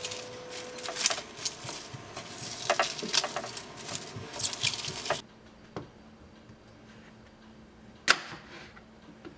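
A quick, irregular run of clicks and clattering knocks, then an abrupt cut to a quiet background about five seconds in, with one sharp click about three seconds later.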